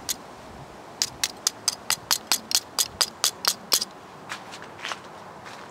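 Crispy deep-fried chicken crust being tapped with a utensil to show off its crunch: a quick, even run of crackly taps, about four or five a second, from about a second in until nearly four seconds, then a few fainter ones.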